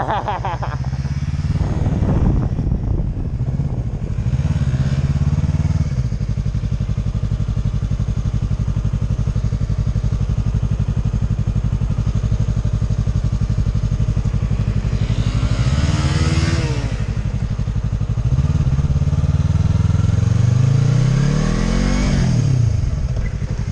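Motorcycle engine running at low speed through slow, tight turns. The throttle is opened and closed several times, and the longest rise in pitch comes a few seconds before the end, then drops off.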